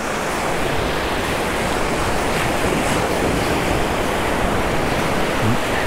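Ocean surf washing in at the shoreline: a steady rush of small breaking waves and foam, with wind rumbling on the microphone underneath.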